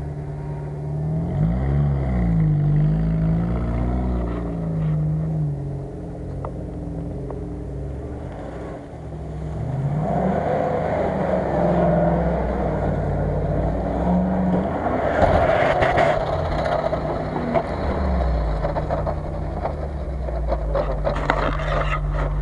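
Off-road 4x4 engines revving up and down several times, with a noisier stretch of tyres churning on the muddy slope through the middle, settling to a steady engine note near the end.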